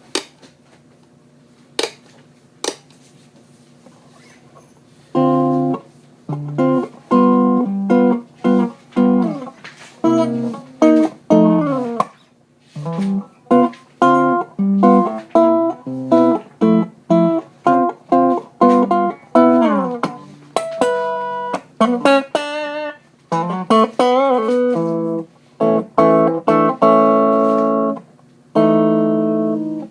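Epiphone Sheraton II semi-hollow electric guitar played through an Aslin Dane PT-15 amplifier. After a few short clicks, short chords and single-note phrases start about five seconds in, with wavering bent notes past the middle.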